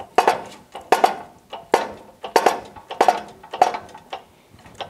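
A steady series of metallic clanks, about one every 0.6 s and each ringing briefly, from a Dake hydraulic shop press being worked to press an outboard lower unit's forward gear and bearing together.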